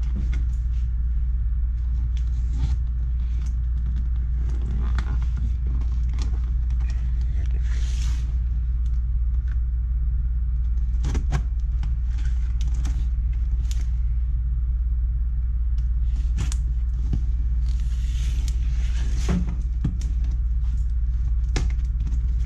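A taped cardboard box being worked open: packing tape cut and torn and cardboard flaps scraped and knocked, heard as scattered clicks and a few hissy scrapes, about 8 and 18 seconds in. A steady low rumble runs underneath and is the loudest sound.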